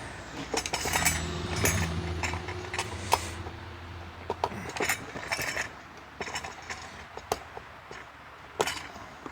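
Irregular metallic clicks, clinks and small knocks of hand tools working the top fan case off a vacuum cleaner motor. A low steady hum runs under the first few seconds and then fades.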